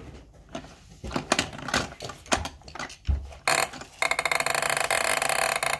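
Plastic toy car track being handled: scattered knocks and clicks as a toy car is set in place. About four seconds in, a fast, even plastic clicking rattle starts, the sound of the hand-worked track mechanism running.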